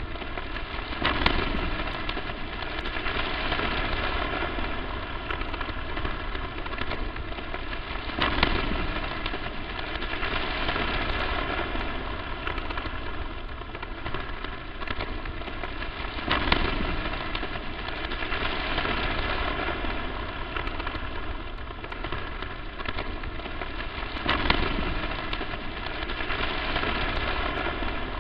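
Crackling static noise: a steady hiss full of small pops, with a louder crack about every eight seconds.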